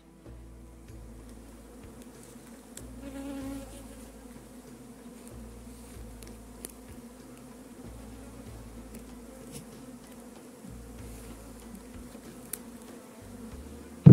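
Many honey bees flying around their hives, a steady hum of wingbeats; about three seconds in, one bee buzzes louder, close past the microphone.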